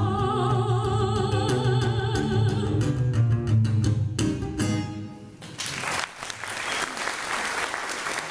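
The last sung note of the chanson, held by a woman's voice with vibrato over a strummed steel-string acoustic guitar, stops about five seconds in. An audience then breaks into applause.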